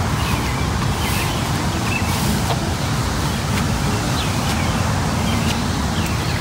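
Steady low rumble of wind buffeting the phone's microphone, with small birds chirping faintly now and then.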